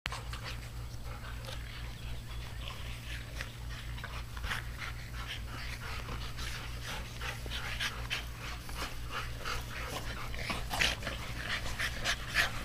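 Several excited dogs panting, with quick, uneven breaths that grow louder near the end, over a steady low hum.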